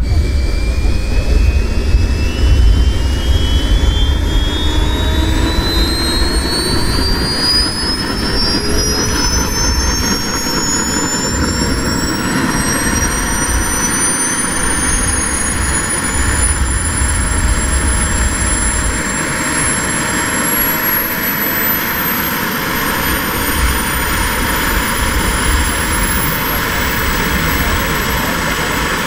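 Twin model turbine jet engines of an RC Dassault Falcon 20 running up on the ground: a high whine that rises steadily in pitch for about twenty seconds and then holds, over a steady low rush.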